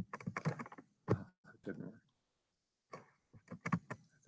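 Computer keyboard keys clicking in short quick runs, including repeated presses of the Enter key.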